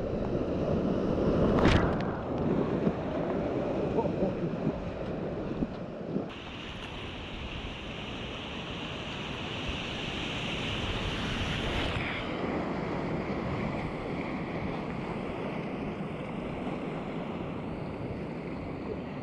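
Whitewater rapids rushing and churning around a kayak on a river running high, with wind buffeting the microphone. Kayak paddle strokes splash into the water, the loudest a sharp splash about two seconds in, and a few smaller splashes follow over the next few seconds.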